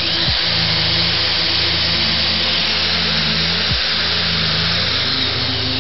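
Power drill boring an angled hole into a wooden block: the motor runs steadily under load with the bit cutting the wood, and the hum dips briefly twice.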